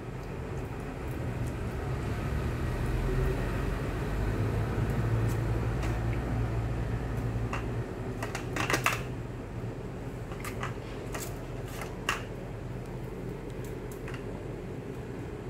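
Sharp clicks and knocks from a Miniature Pinscher puppy's claws on a tile floor and a rope toy knocking against a plastic stand-fan base as the puppy tugs the toy out, loudest about halfway through. Under them runs a steady low hum that drops about halfway through.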